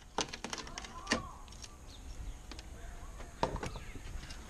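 Sharp clicks and knocks of locking pliers and metal parts being worked at a pickup's front bumper opening: a quick cluster in the first second, loudest about a second in, then two more knocks about three and a half seconds in.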